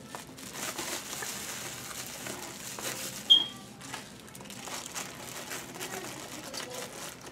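Plastic bubble-wrap bags crinkling and rustling as parts are handled and packed into a cardboard box, with one brief, loud, high squeak a little over three seconds in.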